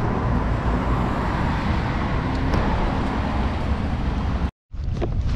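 Steady rush of a waterfall, a dense, even roar heavy in the low end, which cuts off abruptly near the end and gives way to a different outdoor scene with wind.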